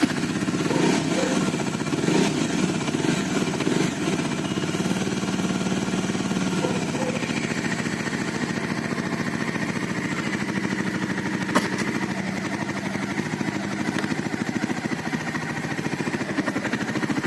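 A 2019 Bajaj Dominar 400's single-cylinder engine running just after being started, with uneven throttle blips for the first few seconds, then settling into a steady run.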